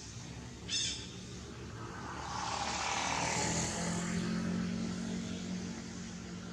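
A motor engine passing by: its noise swells up and fades over a few seconds, leaving a steady low hum. A brief sharp crackle comes just under a second in.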